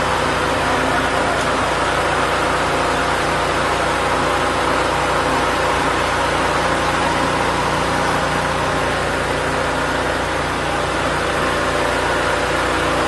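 Small portable petrol engine running steadily at a constant speed, a loud, unbroken engine drone.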